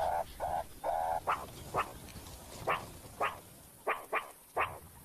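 Meerkats giving alarm calls at an approaching ground predator. A couple of drawn-out calls come first, then short sharp barks repeat about twice a second, the call meerkats use as the predator gets close.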